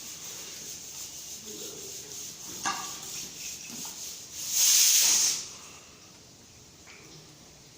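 A short, loud burst of hissing gas lasting about a second, just past the middle, over a fainter steady hiss that stops with it. A click comes a little before the burst.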